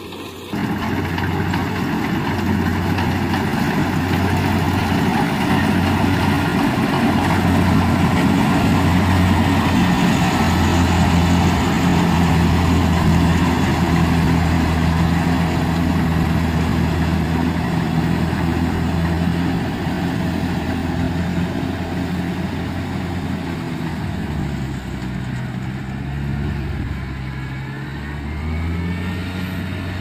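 Kubota DC-70G Plus combine harvester running steadily as it harvests rice. Its engine note dips and wavers about 24 seconds in, then settles again.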